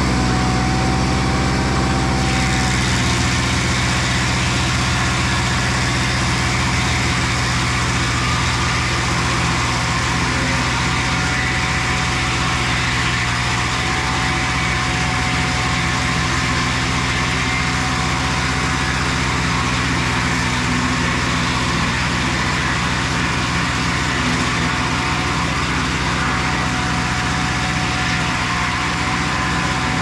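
Mobile Dimension portable sawmill's engine running steadily under load as the saw head travels along a Sitka spruce log, cutting lumber.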